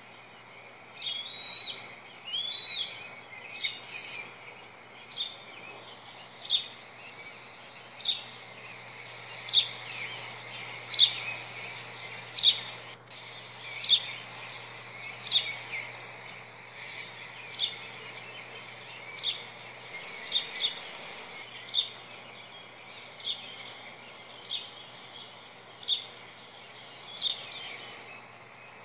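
Bird calls from an eagle nest-cam stream played through a laptop speaker: a run of single high, downward chirps about every one and a half seconds, with a few fuller, quicker calls in the first four seconds.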